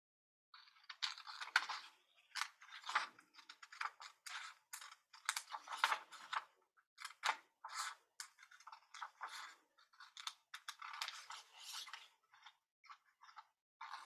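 Scissors cutting through thin patterned craft paper in an irregular run of short snips, a few a second. The snips start about half a second in.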